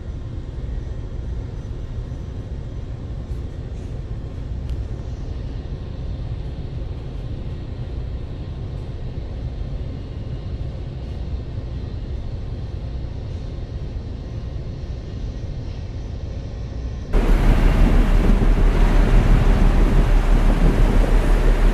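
A steady low rumble, then about three-quarters of the way through a sudden cut to much louder wind buffeting the microphone over storm waves.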